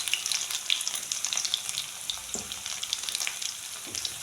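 Tempering of crushed garlic, cumin and mustard seeds sizzling and crackling in hot mustard oil in a kadhai. A steady hiss is dotted with many small pops, and the pan is stirred a couple of times.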